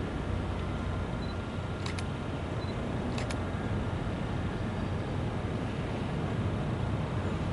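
Diesel switching locomotive rumbling steadily, with a few short sharp clicks about two and three seconds in.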